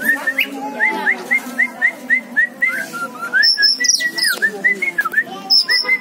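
Oriental magpie-robin singing: a run of short clear whistled notes repeated about four times a second, breaking partway through into higher, falling whistles.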